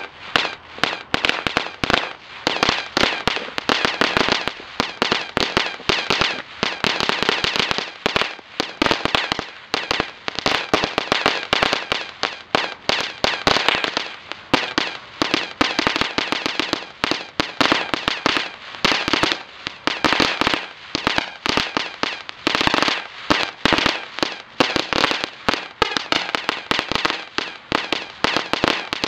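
Epic Fireworks Crazy Crickets, a small gold-crackle ground fountain, going off: a dense, continuous crackle of many sharp little pops that swells and eases in clusters.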